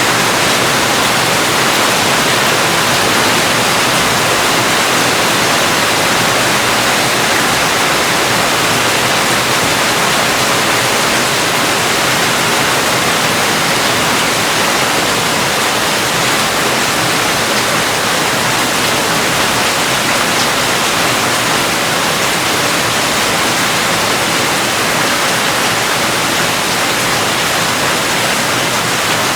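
Steady heavy rain, an even hiss without single drops standing out.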